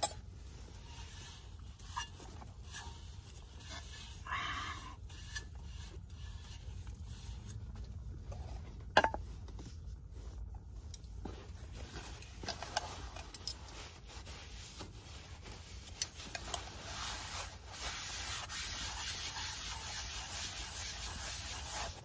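Something being wiped and scrubbed clean by hand: rubbing and scraping strokes with a few sharp knocks, the loudest about nine seconds in.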